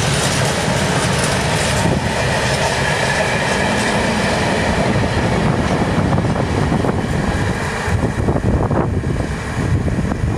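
Eaos open freight wagons of a passing freight train rolling by on the rails: a steady rumble and clatter of wheels, with a high whine for a few seconds in the middle. Near the end the last wagon goes past and the noise thins out to separate wheel clicks.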